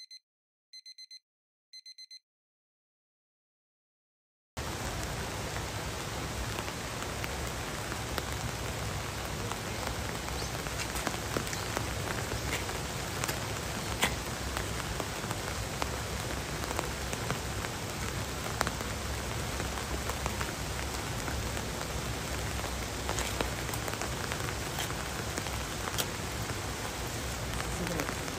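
Three short electronic beeps about a second apart, then, after a few seconds of silence, steady rain falling, with scattered sharper drop hits.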